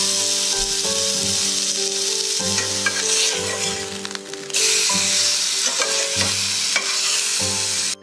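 Beef steak sizzling loudly in a frying pan on a gas camp stove. The sizzle eases a little in the middle, then surges back about four and a half seconds in as the steak is turned with a spatula.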